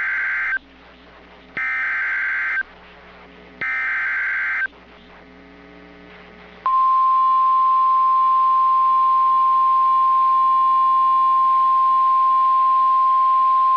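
NOAA Weather Radio alert signal. Three raspy bursts of SAME header data tones, each about a second long and a second apart, are followed about seven seconds in by the steady 1050 Hz warning alarm tone. The sequence announces a new warning broadcast.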